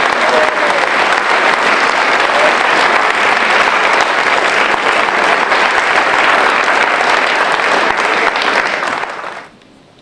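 Audience applauding steadily as a player walks on stage, the clapping dying away quickly near the end.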